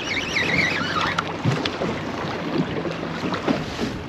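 Wind buffeting the microphone over choppy water slapping against a small fishing boat's hull. A brief wavering high whistle sounds in the first second.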